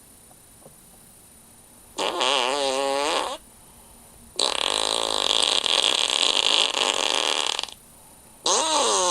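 Three fart sounds with short silences between them. About two seconds in comes a short one with a wobbling pitch, then a long, raspier one lasting about three seconds, and near the end a third, pitched one that drops at its start.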